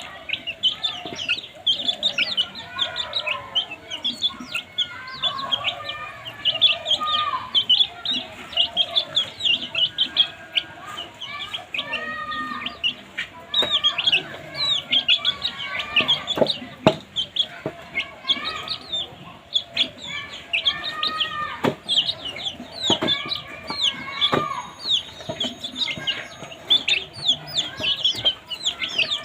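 A flock of baby chicks peeping constantly: many short, high, falling chirps overlapping, with some lower calls mixed in and a sharp click now and then.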